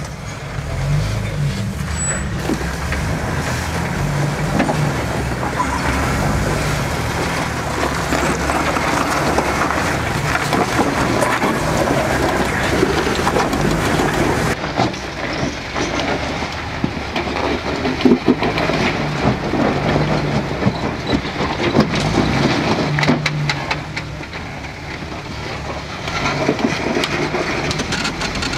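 Off-road 4x4 engine running under load as the vehicle crawls over rocks, with scattered knocks and clatter.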